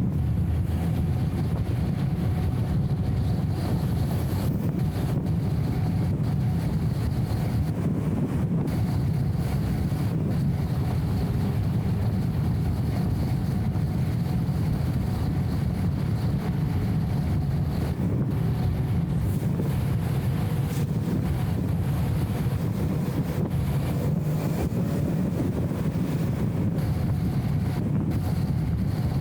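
BMW E34 M5 Touring's straight-six and tyres at a steady cruise: an even low drone of engine and road noise, muffled by a camera's anti-wind audio filter.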